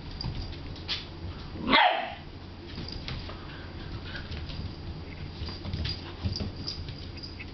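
A puppy gives one short play bark about two seconds into a rough-and-tumble with a cat. Around it are scuffling and light ticks of claws on a tile floor.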